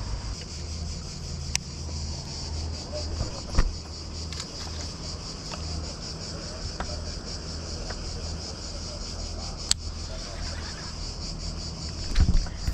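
Insects buzzing in a steady, high drone, with a low hum beneath it and a few isolated sharp clicks.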